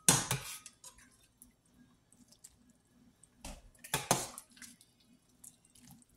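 Soup ladled into a ceramic bowl: two short splashing pours, the louder one right at the start and a second about four seconds in.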